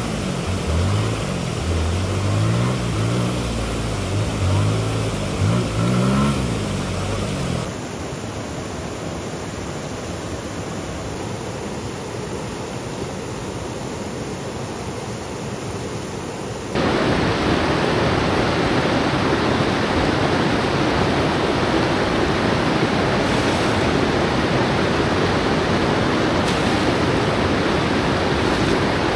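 Flowing river water, a steady rushing hiss that gets clearly louder and fuller about 17 seconds in, where fast water runs over a small rocky cascade. In the first seven seconds a low pitched sound rises and falls under the water noise.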